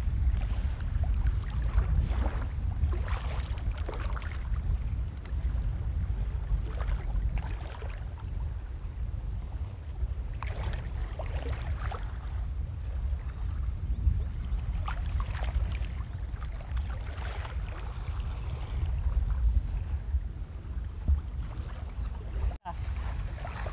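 Wind buffeting the microphone in a steady low rumble, over shallow sea water sloshing and splashing around wading legs.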